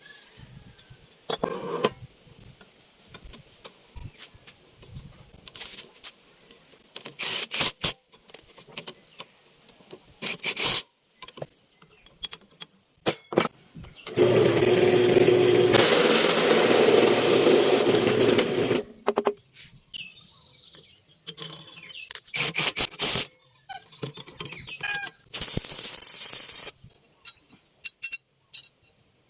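Workshop handling noises: scattered knocks, clicks and scraping of metal parts being worked by hand. About halfway through, a power tool runs loudly for about five seconds, then stops.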